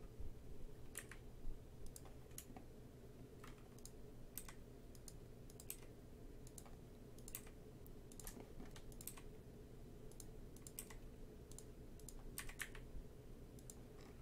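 Faint, irregular clicking from a computer mouse and keyboard, one or two clicks a second, over a low steady background hum.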